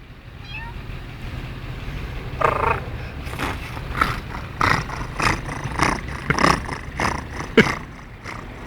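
A man imitating a dog with his voice: a short drawn-out call, then a run of about a dozen short barks, roughly two a second. Steady traffic rumble underneath.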